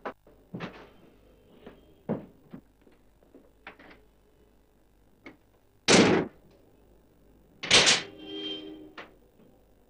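Knocks and thuds of a wardrobe, drawers and a suitcase being opened, shut and handled. Two louder bangs come about six and eight seconds in, and the second is followed by a short rattling ring.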